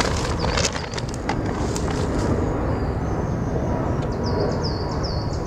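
Woodland field recording: a steady low rumble, a few sharp clicks in the first second or so, and a bird singing a quick run of about six repeated chirps near the end.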